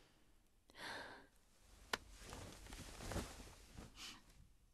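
Faint breathing from a person on the verge of tears: a soft sigh about a second in and a short sniffling breath near the end. A single small click comes about two seconds in.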